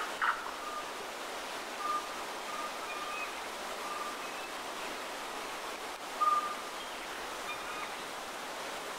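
Waterfall and stream rushing steadily, with a few short whistled bird calls over the top, the loudest just after the start and about six seconds in.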